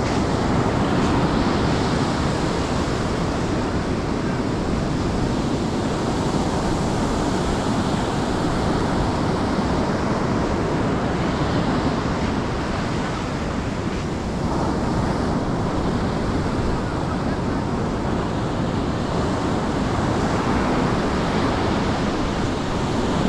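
Surf breaking and washing on a beach in rough seas, a steady rushing noise, with wind buffeting the microphone.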